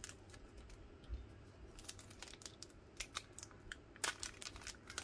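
Faint crinkling and rustling of a clear plastic wrapper being handled and peeled off a rolled paper bundle, in scattered small crackles that grow busier and louder near the end.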